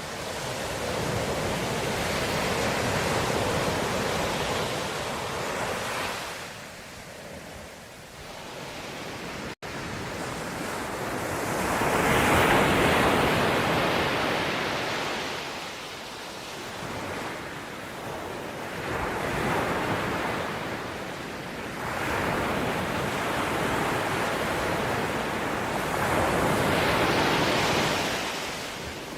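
Ocean waves breaking and washing ashore, the surf rising and falling in about four slow surges. There is one momentary cut-out in the sound about a third of the way in.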